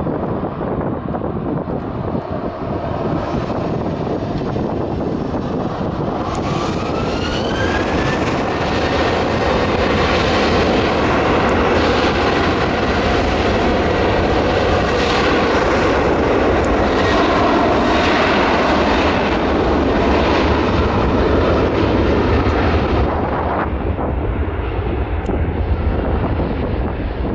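Aircraft engines growing loud, with a whine that rises in pitch about six seconds in and then holds steady. The noise stays loud for about fifteen seconds and eases near the end. Low wind buffeting on the microphone runs underneath.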